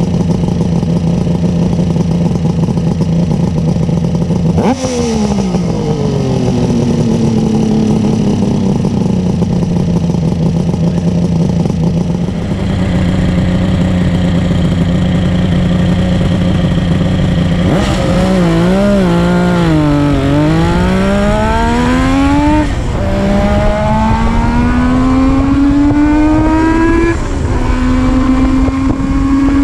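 Kawasaki S3/KH400's air-cooled two-stroke triple through a Zenshin 3-into-1 exhaust, idling steadily with one sharp rev blip about five seconds in. After a cut it idles again, revs up and down a few times, then accelerates away, its pitch climbing through the gears with two gear changes.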